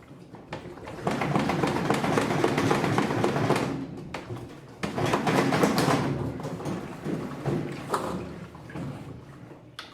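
Washing-machine basket rattling and knocking in two long bouts as it is rocked side to side to work it loose from its rust-seized shaft, with a couple of single knocks near the end.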